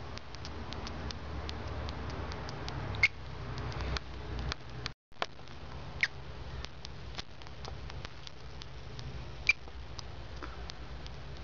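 Pet fancy mouse squeaking while being stroked in the hand: many short, faint high squeaks at irregular intervals, with three louder ones about three, six and nine and a half seconds in.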